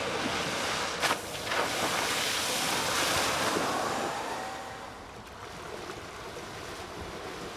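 Wakeboards carving through the water behind a cable tow, giving a rushing hiss of spray that is louder for the first four seconds or so and softer after. There is a single sharp knock about a second in.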